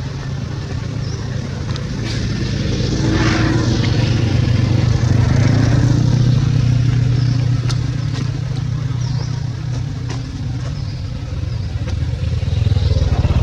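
Engine of a passing motor vehicle running steadily, growing louder a few seconds in and again near the end.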